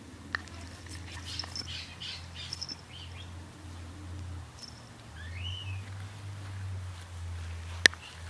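Small birds chirping in the background over a low steady hum, with a single sharp click near the end.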